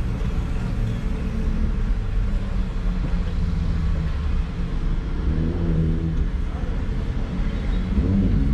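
Mercedes Sprinter van's engine idling, a steady low rumble heard from inside the cabin.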